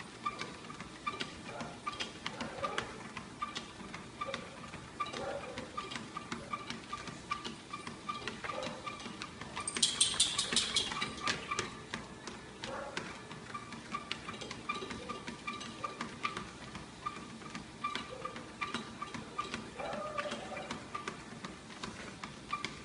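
Motorised treadmill running with a dog walking on its belt: a steady, rhythmic ticking with a faint repeating whine. About ten seconds in comes a brief, louder high-pitched sound.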